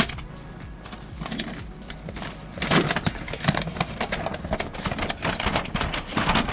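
A large folded paper manual being unfolded and handled, its sheets crinkling and rustling. The crinkling grows louder and busier about two and a half seconds in. There is a single sharp tap at the very start.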